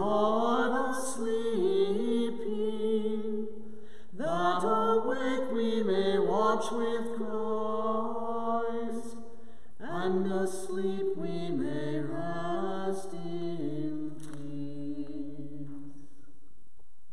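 A man's voice chanting a liturgical line unaccompanied, in three phrases on stepped notes with short breath pauses, falling silent about a second before the end.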